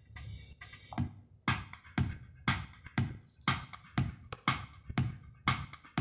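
Electronic music with a drum-machine beat of about two hits a second, played back through a car radio. The beat comes in about a second in.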